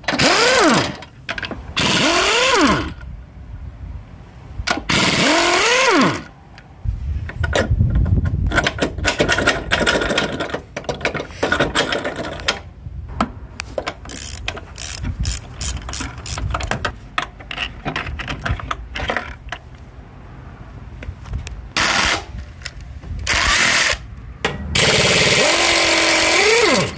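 Impact wrench running in short bursts on the 18 mm and 15 mm motor-mount bolts, its motor whine rising and falling with each trigger pull. Across the middle there is a long run of quick, irregular clicks and knocks. The loudest bursts are near the start and again near the end.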